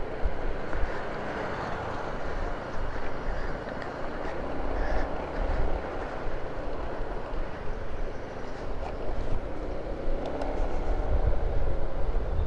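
Motorcycle on the move: a steady rush of wind and road noise over a low rumble of engine and tyres.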